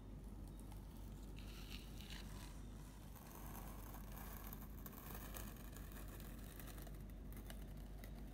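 Quiet room tone with a low steady hum, broken by faint intermittent rustling and a few light clicks.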